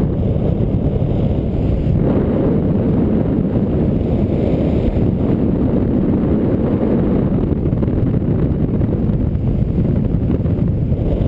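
Wind of a paraglider's flight rushing over the camera microphone: a steady, loud low rumble that doesn't let up.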